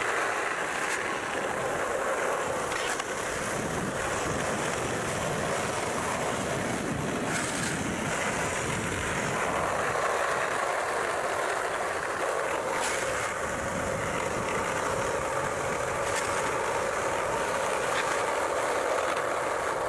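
Skateboard wheels rolling steadily over asphalt, with a few brief clicks from the board along the way.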